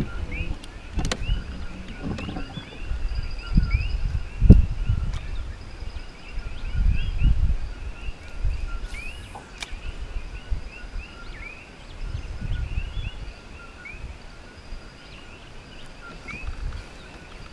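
Wind buffeting the microphone in uneven gusts, the strongest about four and a half seconds in, over a continuous chorus of short, rising chirps from small animals around the water.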